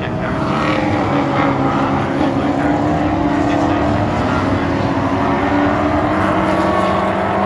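Historic touring cars accelerating one after another up the straight, their engines running hard and overlapping, with the notes rising in pitch as they pull away.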